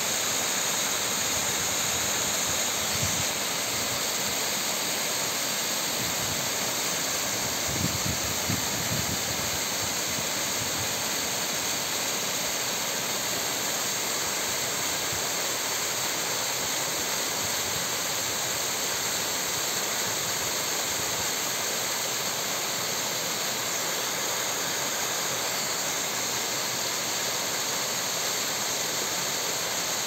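Small waterfall cascading over rocks: a steady rush of falling, splashing water.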